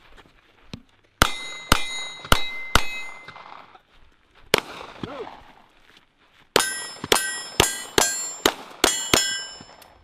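Gunshots in three strings, each shot followed by a short metallic ring from a steel target being hit: four shots about half a second apart, a single shot, then seven shots in quick succession near the end.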